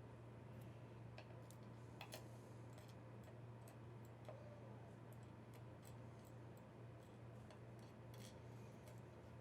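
Faint, irregular small clicks and ticks of tiny padlock pins and springs being moved and set out on a surface, over a low steady hum.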